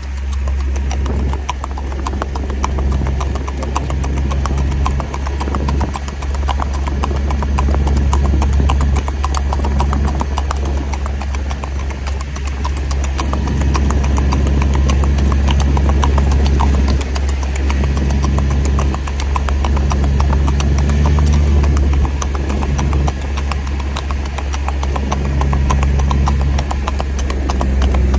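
A gaited horse's hooves clip-clopping on asphalt in rapid, even beats as it moves in a smooth, fast gait. A steady low engine hum runs underneath.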